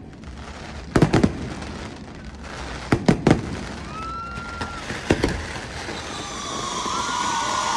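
Fireworks display: shells bursting in quick clusters of two or three bangs about every two seconds, with a short whistle between them. A steady hiss with whistling builds near the end.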